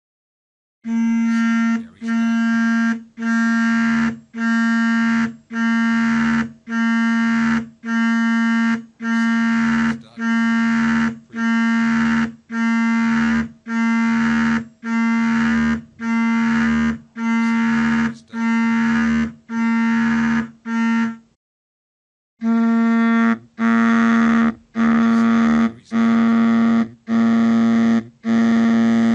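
Cell phone vibrating: its vibration motor buzzes in even pulses of just under a second, about one a second, each a steady low hum. The pulses stop for about a second some two-thirds of the way through, then start again.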